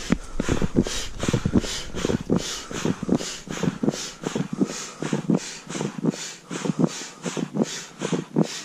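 Manual air pump pumping up a PVC inflatable boat: a steady rhythm of short puffs of air, about two to three strokes a second, as the boat's chambers are topped up.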